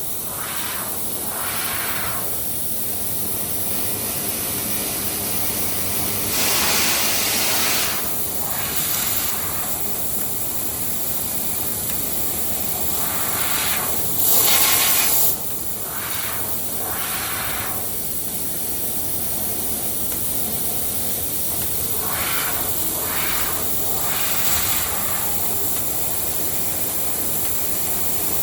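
A 3 kW laser cutting head on a CNC punch-laser machine cutting sheet metal, its assist gas giving a steady hiss. Two louder gusts of about a second each come around 7 and 14 seconds in.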